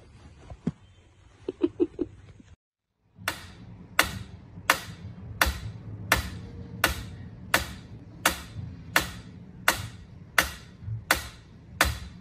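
Mechanical pyramid metronome ticking steadily, about three ticks every two seconds, starting about three seconds in after a moment of silence. Before that, a few soft knocks.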